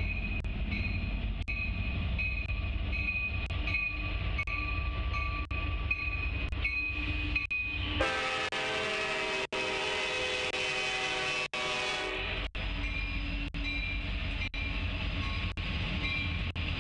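A diesel freight locomotive's air horn sounding as the train approaches a grade crossing, over the low rumble of the engines. The horn is louder and fuller for about four seconds in the middle.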